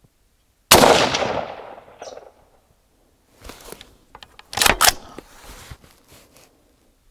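A single rifle shot from a Warwick Firearms WFA1 in .300 Blackout, its report dying away over the next second or so. A few seconds later comes a run of metallic clacks: the manually operated action is pulled back and let go forward to load the next round.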